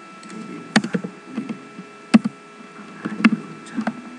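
Computer keyboard keystrokes: about ten sharp, irregular clicks, some in quick pairs, over a steady electrical hum.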